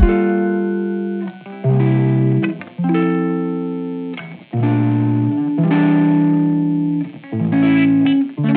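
Background music: slow chords on a plucked string instrument, a new chord struck every second or two and left to ring.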